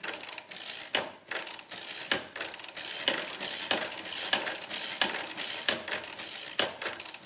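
A Mercedes Euklid Model 16 proportional-lever mechanical calculator being hand-cranked through an automatic division: a continuous clatter of its gears and levers, with frequent sharp clicks as it cycles, subtracting or adding each turn and shifting the carriage between digits.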